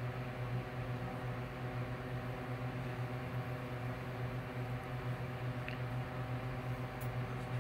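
Steady low machine hum with an even background hiss.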